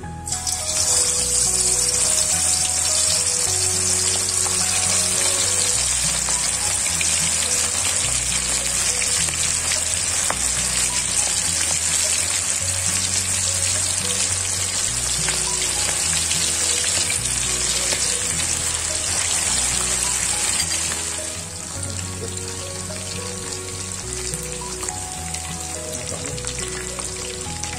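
Turmeric-marinated chicken pieces deep-frying in hot oil in a wok: a loud, steady sizzle that starts as the first piece goes in, settling to a quieter sizzle about 21 seconds in.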